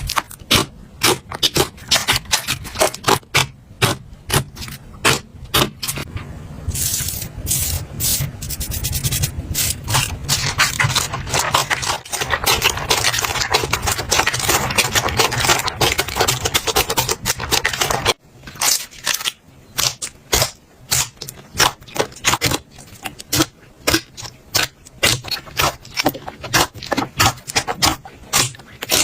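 Slime being handled and squeezed, giving quick irregular crackling and popping clicks. The crackle thickens into a near-continuous stream from about seven seconds in, then breaks off suddenly about eighteen seconds in and goes back to separate pops.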